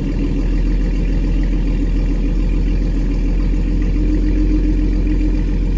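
Car engine idling steadily just after being started, its coolant still cold.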